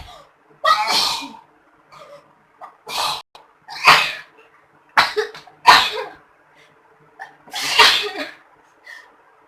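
People sneezing repeatedly, about six sharp sneezes spaced a second or more apart, set off by chikni powder put up their noses.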